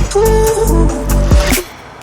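Background music with a strong bass line and drum hits, cutting off abruptly about one and a half seconds in and leaving a faint hiss.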